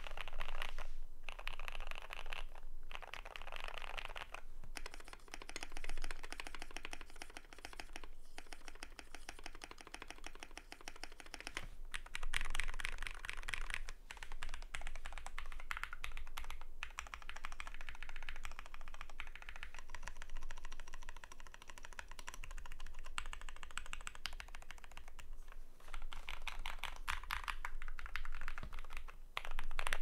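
Typing on a TKD Cycle7 Void Elf custom mechanical keyboard with lubed SP Star Meteor Orange switches, an aluminium plate and PBT keycaps. It is a dense stream of keystrokes in runs, with brief pauses every few seconds.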